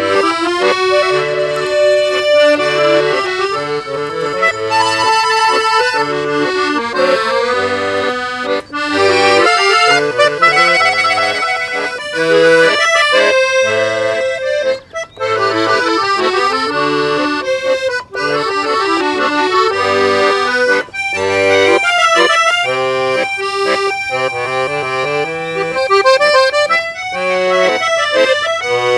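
Two piano accordions playing a musette waltz in duet, a melody and chords over a regular bass pattern, with a few very short breaks.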